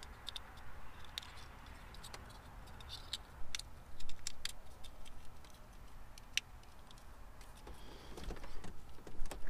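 Irregular small plastic clicks and handling noise as wiring-harness connectors are pushed and plugged back into place.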